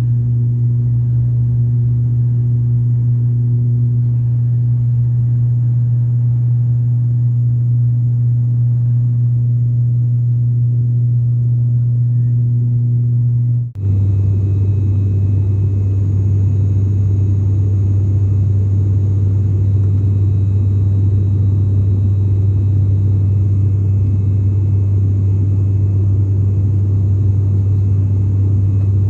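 ATR 72-600's Pratt & Whitney PW127M turboprop engines and propellers heard inside the cabin: a steady, deep drone as the aircraft climbs out after takeoff. After a brief break about halfway through, the drone carries on at a lower pitch with more rushing noise.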